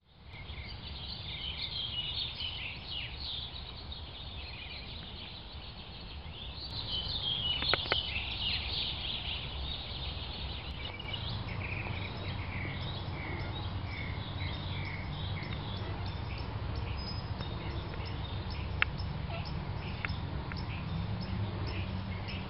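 Songbirds chirping and calling, busiest in the first half. After that comes a run of short, evenly repeated chirps, all over a steady low hum, with a few sharp clicks near the end.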